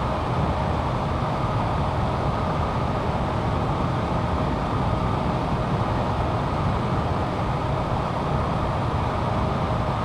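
Steady jet aircraft noise, an even, unchanging rush with most of its weight in the low and middle range.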